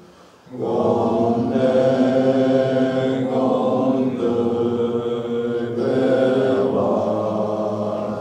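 A Tibetan Buddhist lama chanting a prayer in a low voice with long, drawn-out notes, after a short breath pause just after the start.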